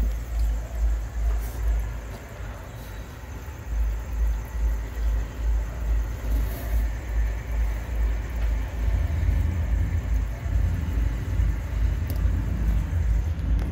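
Low mechanical rumble pulsing about three times a second. It eases briefly about two seconds in, then returns and grows a little louder.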